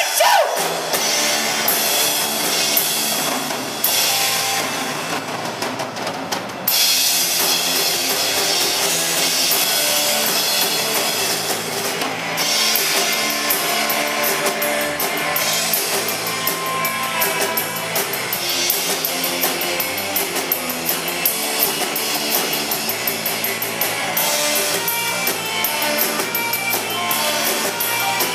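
Live instrumental rock band playing: electric guitar, electric bass and a drum kit. The guitar slides down in pitch right at the start, the band drops to a quieter passage about four seconds in, and the full band with cymbals comes crashing back in at about six and a half seconds.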